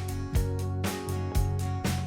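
Background music with a steady beat of about two strokes a second over held chords and a deep bass.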